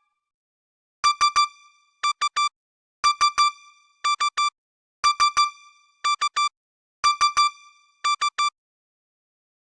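Siemens CX70 mobile phone ringtone: a short electronic phrase of quick beeps on nearly the same pitch, three then three more, repeated four times about every two seconds.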